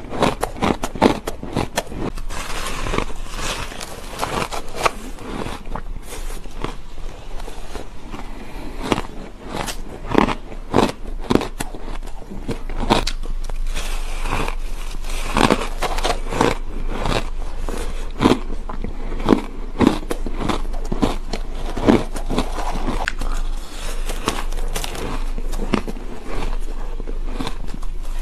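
A person biting into and chewing chunks of crumbly, frosty ice, close-miked. It is a dense run of crackling crunches, with louder sharp bites every second or so.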